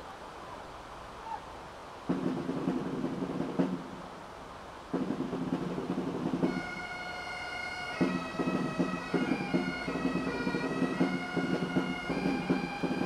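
Bagpipe band: the pipes' drones strike up about two seconds in, break off briefly and come in again around five seconds. From about six and a half seconds the chanters play a melody over the drones, with drum strokes beneath.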